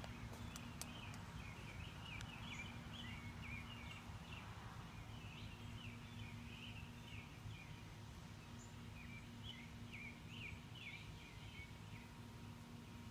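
Songbirds chirping and twittering in quick runs, over a faint steady hum of honeybees working borage flowers that drops out for a couple of seconds midway. A low background rumble lies beneath.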